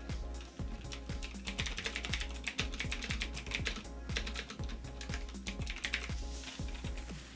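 Fast typing on clicky blue-type mechanical keyboard switches, Cherry MX Blue and Razer Green, a dense run of sharp key clicks with short pauses. Background music with a steady beat plays underneath.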